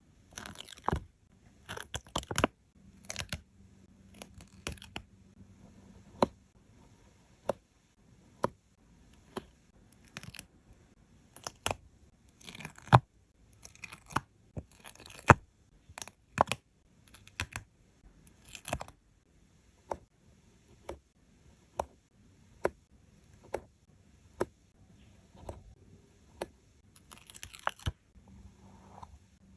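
Stickers being peeled from their backing and pressed into place: short papery peeling sounds between irregular sharp taps and clicks, often several a second.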